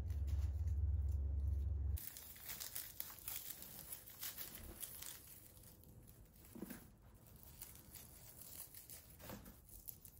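Dry white fir cones being crumbled apart by hand, their papery scales crackling and crinkling as they break off to free the seeds. A low rumble covers the first two seconds and cuts off suddenly.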